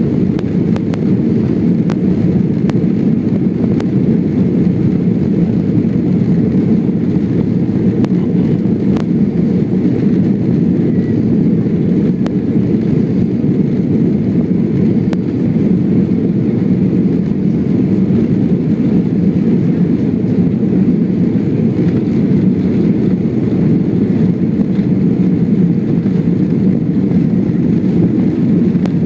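Boeing 747 airliner's engines running for takeoff: a loud, steady low rumble that holds level without rising or falling.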